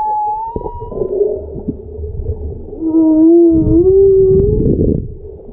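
Whale calls: long, drawn-out moaning tones that slide slowly in pitch over a low rumble. A higher call rises slightly and fades about a second in, then a lower, louder call swells about three seconds in, rises and holds for nearly two seconds.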